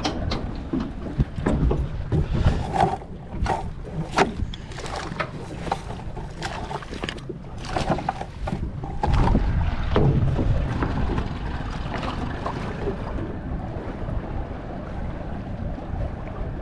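Small boat's outboard motor running slowly under wind buffeting the microphone, with a run of sharp knocks and rattles over the first nine seconds or so as a mullet net feeds out over the back of the boat.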